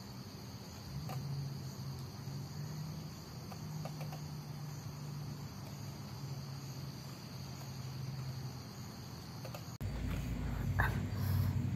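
Crickets trilling in a steady, continuous chorus, with a faint low hum beneath. About ten seconds in, the sound cuts abruptly to a louder low rumble with a few clicks.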